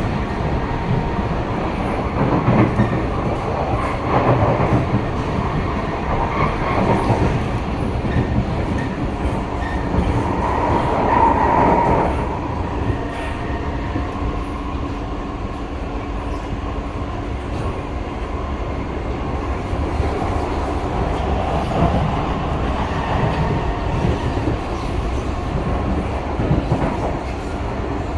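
Running noise inside a Singapore MRT C151A train car in motion: a steady rumble of wheels on track. A tone rises out of it for a short while about eleven seconds in.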